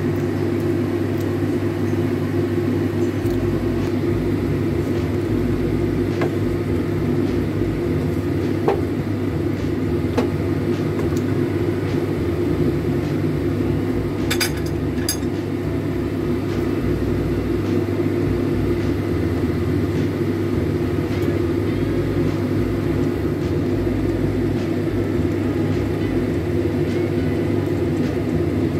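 A steady low mechanical hum, with a couple of brief light clicks about halfway through.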